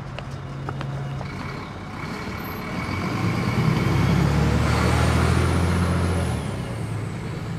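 City bus driving past close by. Its engine hum swells over the first few seconds, is loudest in the middle with a faint high whine above it, and eases off near the end.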